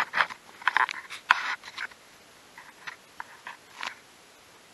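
Handling noise from the camera being gripped and repositioned: a quick run of clicks and scraping rubs, then a few light ticks and taps.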